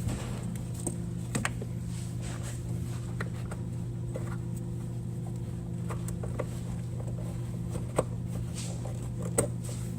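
A few light clicks and knocks from the oil separator's PCV hoses being handled and pushed onto their fittings, the sharpest two near the end, over a steady low hum.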